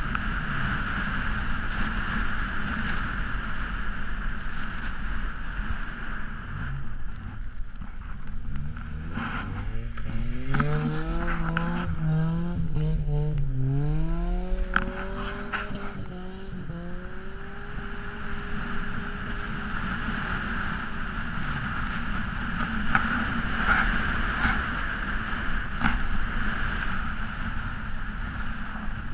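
Car driving on a snowy road: a steady rumble of engine and tyres on packed snow under a constant hiss. Between about nine and seventeen seconds in, the engine revs up and down several times.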